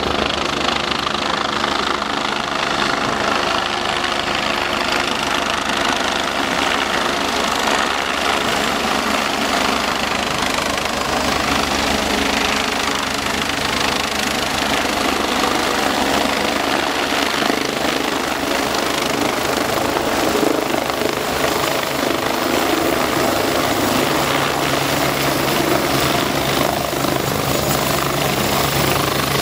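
Agusta A109BA helicopter's twin turbine engines and main rotor running steadily as it hovers low and sets down on the grass.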